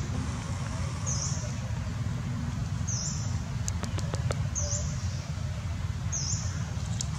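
Outdoor ambience: a steady low rumble, with a short high chirp repeating about every second and a half and a few faint clicks about four seconds in.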